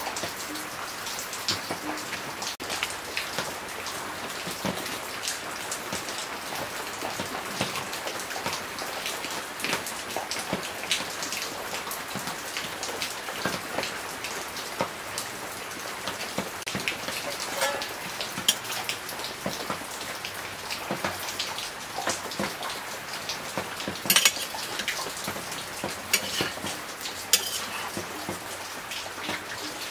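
Pork pieces sizzling in fat in a wok over a wood fire: a steady dense hiss full of small pops and crackles, with a few louder sharp clicks of a metal ladle against the pan in the second half.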